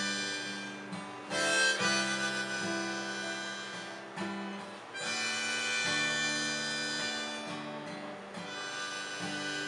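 Harmonica played in a neck rack over strummed acoustic guitar: long held harmonica chords in phrases of a few seconds with short breaks between them, guitar chords sounding underneath.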